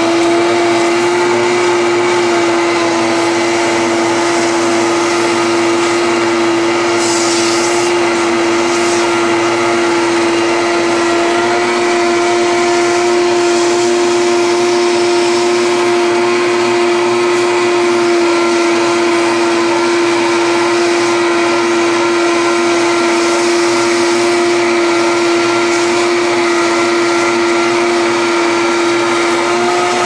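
Vacuum cleaner running steadily with a constant motor whine, its hose sucking dirt out of the inside of an HVAC evaporator coil box. Brief louder rushes of air come about seven and nine seconds in.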